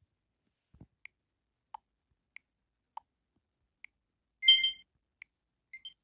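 Short electronic blips from an LG V400 tablet's speaker, several spaced apart, then a brief two-note chime about four and a half seconds in, the loudest sound.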